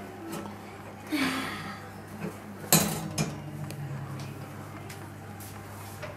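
A wire oven rack, carrying a cake in its tin, scraping and clattering as it is lifted out of the oven and set down on the stovetop, with one sharp metal knock a little before halfway and a few lighter clicks. A low steady hum runs underneath.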